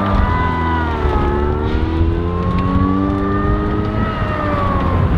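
Lifted Mazda Miata's engine running and revving while driving off-road, its pitch rising and falling several times.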